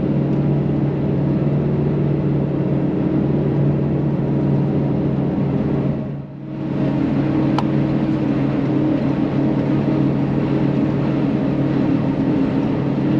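Forage harvester running steadily under load while chopping maize, its engine and drive droning from inside the cab at about 1500 rpm. The sound dips sharply for a moment about six seconds in.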